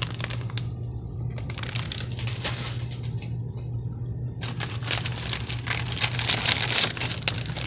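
Plastic bags of model-kit runners crinkling and rustling as they are handled, in two stretches, the second louder and longer, over a steady low hum.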